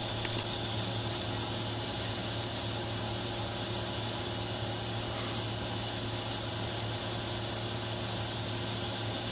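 Steady low hum with an even hiss, unchanging throughout, like a motor or fan running; no distinct events.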